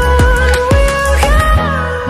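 Background pop music with a steady drum beat and sustained synth or vocal notes.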